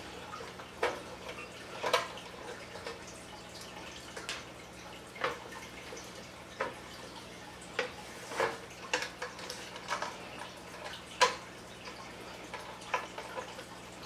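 A small screwdriver clicking and scraping against screws and a metal equipment case as the cover screws are backed out: a dozen or so sharp, irregular clicks over a faint steady hum.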